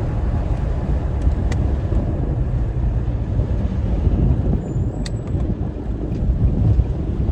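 Infiniti sedan with a VQ35HR V6 on its stock exhaust, driving at a steady pace: a continuous low engine and road rumble with no clear revving. Two light clicks come about a second and a half in and near the middle.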